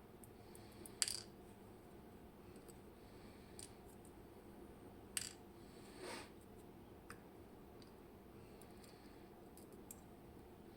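Sparse small metallic clicks and clinks from the parts of a disassembled Robur safe deposit lock being handled and set down. The sharpest click comes about a second in, a second one about five seconds in, and fainter ticks fall between.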